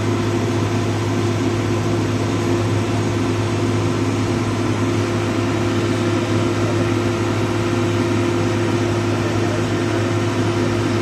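Dynapac asphalt paver's diesel engine running steadily, a constant low drone with a steady hum and no change in speed.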